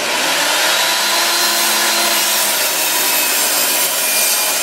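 A 909 255DBUL 10-inch sliding compound miter saw with a 15-amp motor, running under load as its blade cuts through a thick round wooden post. The sound is loud and steady throughout.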